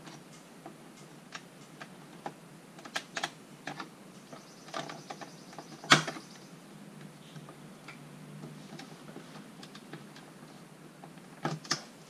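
Scattered light plastic clicks and taps as a trim piece on a C4 Corvette's inside door panel is worked loose by hand, with one sharper click about halfway through.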